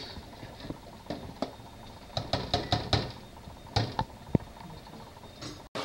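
A metal spoon clinks and knocks against a stainless steel pot while a thick blended mix is stirred as it cooks down. The knocks are scattered, with several in quick succession about two to three seconds in.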